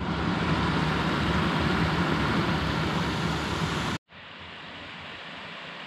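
Stream water rushing steadily over a low stone weir. About four seconds in it cuts off abruptly to a much quieter steady rushing sound.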